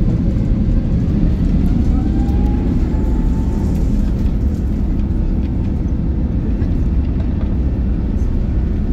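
Cabin sound of an Airbus A350-900 taxiing: a steady low rumble from its Rolls-Royce Trent XWB engines at low taxi thrust. A faint whine rises slightly about two seconds in.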